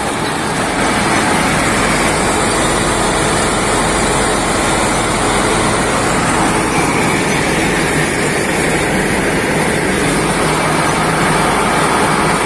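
Groundnut thresher running under load, a loud, steady mechanical din as it strips and separates the pods from the vines.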